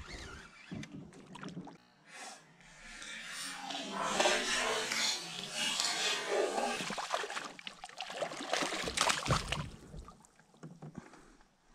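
A hooked fish thrashing and splashing hard at the surface beside a fishing kayak, a churning of water with many sharp splashes from about two and a half seconds in to near the end, and a deep thump close to the end.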